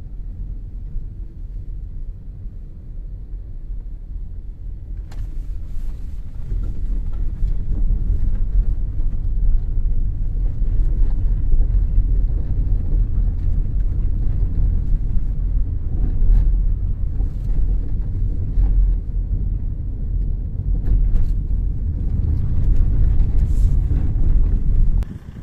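Road noise inside a moving car: a steady low rumble of tyres on a broken, dusty road surface under repair, with scattered clicks and rattles from about five seconds in.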